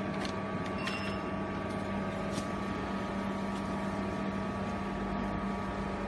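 Steady hum of a vertical hydraulic baler's electric motor and pump running, with a few faint clicks as baling wire is threaded through the compressed cardboard bale.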